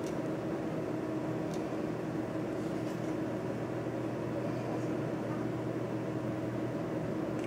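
Steady background hum and hiss with no change in level, and one faint click about a second and a half in.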